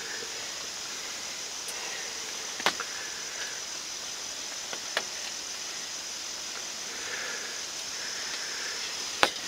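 Quiet outdoor ambience: a steady high-pitched hiss with a few faint clicks, one a little under three seconds in, one about five seconds in and a pair near the end.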